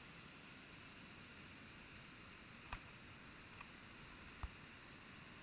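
Faint, steady rush of a waterfall, heard as an even hiss. Three small clicks come a little past halfway.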